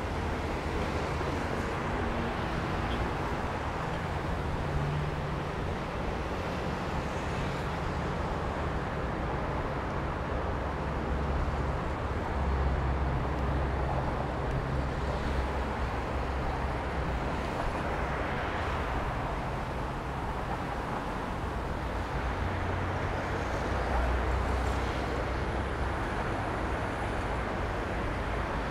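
Steady city road traffic: a constant low rumble of engines and tyres that swells louder several times as vehicles pass.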